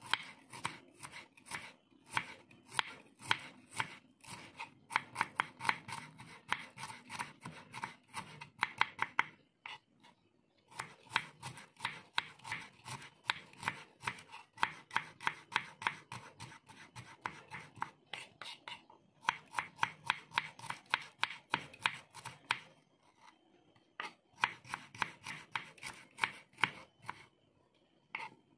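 Kitchen knife slicing shallots on a wooden cutting board: quick repeated knocks of the blade on the board, several a second, with a few short pauses.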